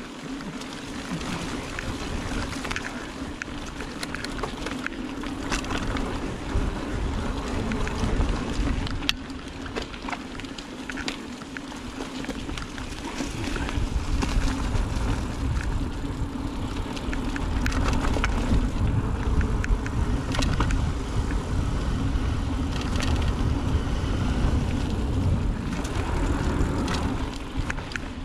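Mountain bike riding fast down a dirt trail: wind rumbling on the helmet or bike-mounted camera microphone over the hum of the knobby tyres, with frequent clicks and rattles from the bike over bumps. The rush grows louder in the second half as speed picks up.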